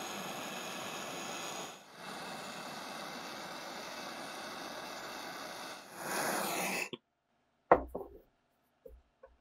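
Handheld gas torch flame hissing steadily as it heats a seized slotted screw in a Singer 1904 sewing machine's cast-iron body to free it; the hiss swells briefly and then cuts off about seven seconds in. A sharp clink follows, then a few light taps.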